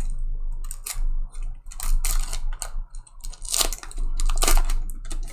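A trading-card pack wrapper being crinkled and torn open and the cards handled, in several short irregular crackling bursts over a low steady hum.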